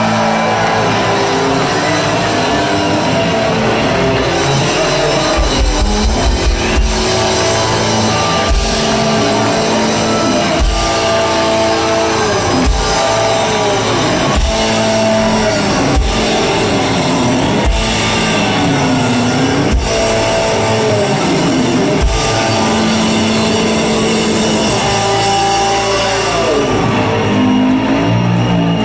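Live rock band playing loudly: electric guitar with bending notes over electric bass and a drum kit.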